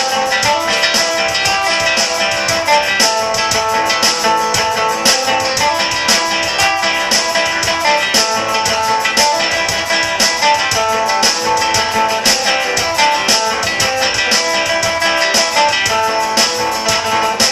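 Music with plucked string instruments playing a quick, busy melody over rapid strumming, going on without a break.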